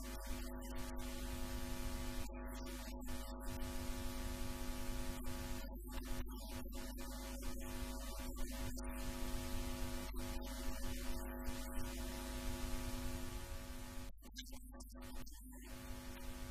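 A steady hum made of several held tones over a hiss. Its strongest tone drops out about fourteen seconds in.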